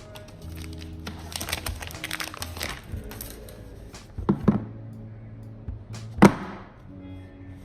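iPhone 12 box packaging being handled over background music: a stretch of crackling rustle, then two sharp taps and a louder knock a couple of seconds later.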